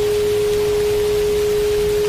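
A steady 417 Hz solfeggio sine tone, held at one pitch, over an even hiss of rain.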